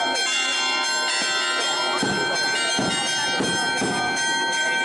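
Church bells pealing, many overlapping ringing tones held at a steady level, with crowd voices underneath.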